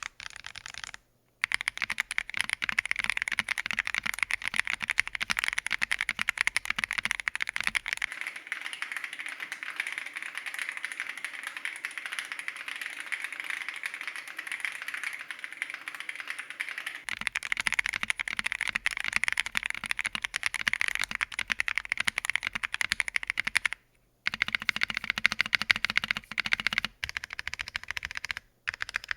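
Typing on an Akko MOD007s V2 aluminium gasket-mount mechanical keyboard fitted with Akko POM Pink linear switches: fast, continuous key clacks, broken by a few brief gaps.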